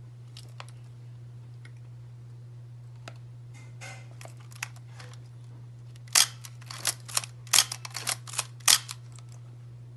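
Vintage 35mm film SLR camera being handled: a few faint mechanical clicks, then a run of about eight sharp clicks over three seconds near the end. A steady low hum runs underneath.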